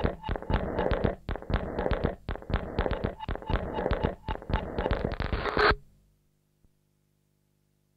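Minimal electronic music made of a fast, irregular pattern of clicks and crackles over a low hum, cutting off abruptly about six seconds in and leaving near silence.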